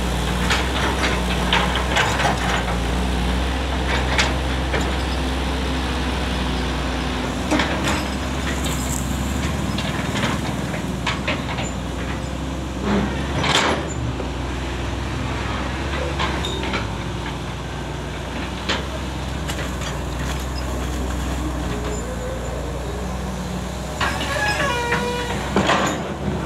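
Hydraulic excavator's diesel engine running steadily under load as it digs, with repeated clanks and knocks from the bucket striking mud and stones. A brief squealing tone comes near the end.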